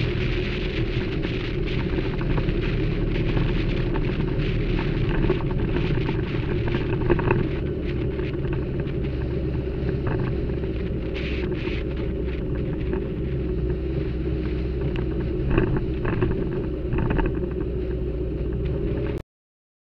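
Motorcycle engine running steadily at road speed, with wind buffeting the microphone. It cuts off suddenly about a second before the end.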